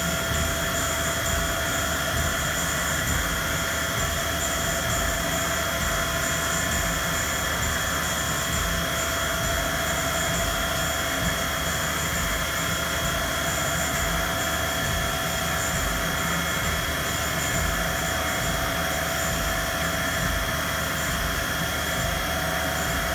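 CNC milling machine spindle running with a steady whine while an end mill takes a light finish pass over a metal bearing housing, stepping back and forth along a flow-line toolpath and shedding small chips.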